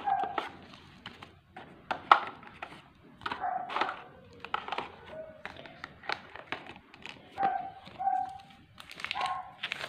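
A dog barking in short, yelping barks about eight times, mixed with sharp clicks and taps from handling the phone's box and packaging.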